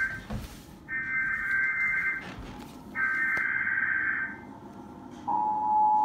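Emergency Alert System tones from a TV speaker: two buzzy digital header-data bursts, each a little over a second long with about a second between them, then the steady two-note EAS attention tone starting a little after five seconds in.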